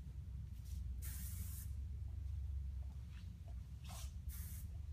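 Aerosol hairspray can sprayed in several short hissing bursts, the longest about a second in, over a steady low room hum.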